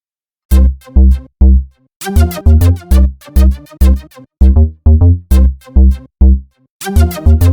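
Electronic dance music with a heavy kick drum about twice a second and sharp hi-hat hits, starting suddenly about half a second in after silence.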